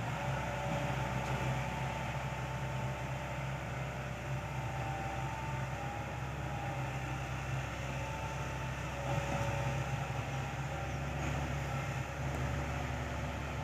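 Excavator's diesel engine running steadily, with a faint wavering whine above the low drone.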